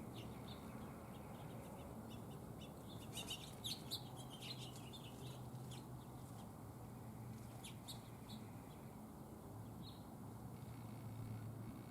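Small birds chirping in short, scattered calls, thickest a few seconds in, over a low steady hum.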